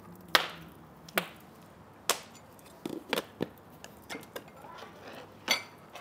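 Kitchen cookware and utensils being handled: about nine sharp, irregular knocks and clatters, a few with a short metallic ring.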